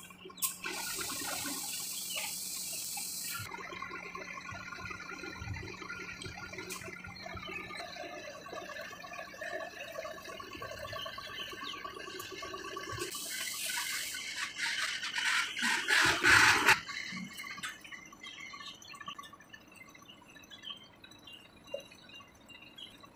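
Compressed air hissing from a truck's air lines in two releases. The first starts and stops abruptly; the second builds louder for a few seconds and then cuts off suddenly.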